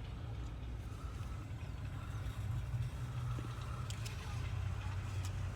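Steady low hum, like a running engine or motor, with a few faint clicks.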